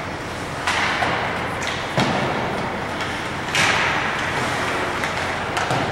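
Ice hockey play echoing in an arena: four sharp bangs of the puck and players hitting the boards, over steady rink noise.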